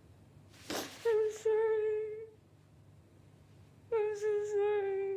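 A woman crying: a sharp breath drawn in, then two drawn-out, wavering wailing sobs, each a little over a second long, with a pause between them.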